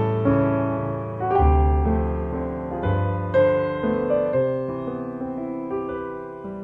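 Background piano music: notes and chords struck every half second or so and left to fade, over held low bass notes.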